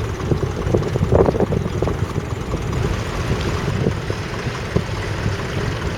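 Vintage tractor engine running steadily with a rapid low pulsing.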